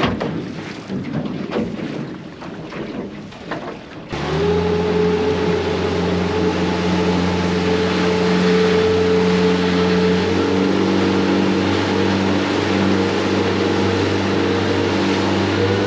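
A boat's motor running steadily, starting abruptly about four seconds in after a few seconds of irregular wind and handling noise.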